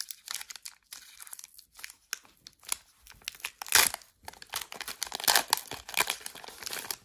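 Foil wrapper of a Pokémon trading card booster pack crinkling and tearing as it is pulled open by hand. The crackle comes in uneven spurts, loudest a little under four seconds in and again around five to six seconds in.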